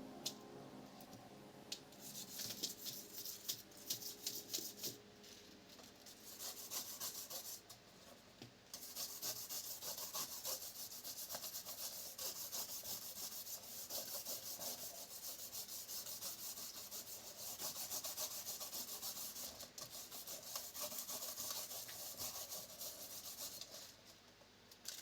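Fast, even rubbing strokes on the hard plastic of an old tape measure as it is cleaned and restored. There are a few bursts early on, then a steady run of scraping strokes after a short pause, stopping just before the end.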